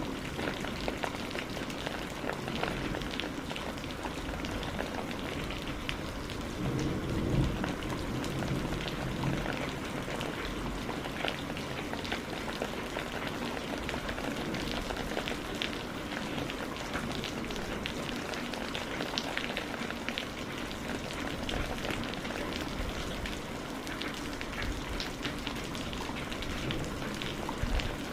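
Steady rain falling, with many small individual drop hits over an even hiss and a brief swell about seven seconds in.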